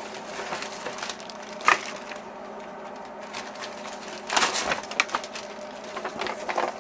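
Clear plastic bag of electronic kit parts crinkling and rustling as it is handled and set down in a plastic parts tray, with a sharp tap about two seconds in and a louder rustle around four and a half seconds in.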